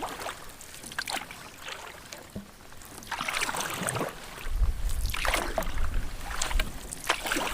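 Canoe paddle strokes in a shallow, weedy creek, with water swishing at each stroke about every two seconds. A low rumble buffets the microphone from about halfway through.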